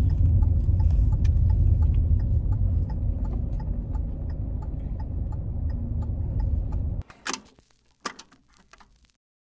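Road rumble inside a moving car's cabin, with a light even ticking of about three clicks a second that fades slightly. The rumble cuts off suddenly about seven seconds in, followed by two brief sharp clicks.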